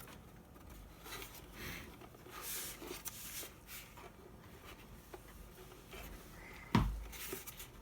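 Faint handling of the Bosch GAS 18V-1 cordless vacuum's cyclone filter and dust container: scattered rubs and rustles as the parts are worked apart, with one sharp click near the end.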